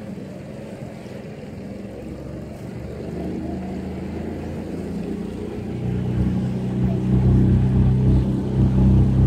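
A boat's motor running, with a low steady hum that grows louder about three seconds in and much louder about six seconds in, as the boat speeds up.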